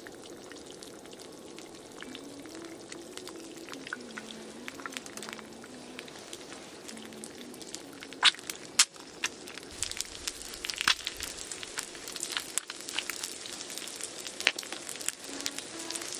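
Steady sizzling with pops and crackles that grow busier about halfway through, with two sharp pops standing out just after the middle.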